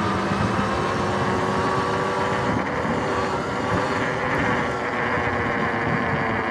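Electric dirt bike riding steadily on pavement: the motor and drivetrain whine, with tyre noise and wind on the microphone.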